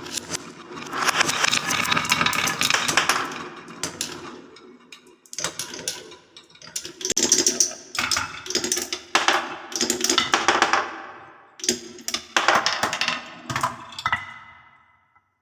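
Balls rolling and clattering down a wooden marble run: dense runs of clicks and knocks in three waves, the last dying away near the end.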